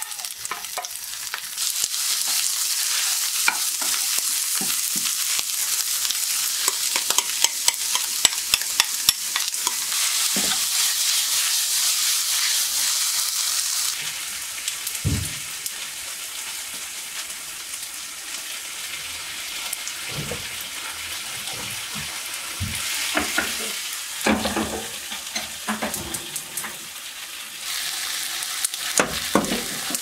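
Sundae and chopped vegetables sizzling in a frying pan on a gas hob as they are stir-fried, with the clicks and scrapes of a spatula against the pan. The sizzle is loudest for the first dozen seconds, then eases and swells again briefly twice later on.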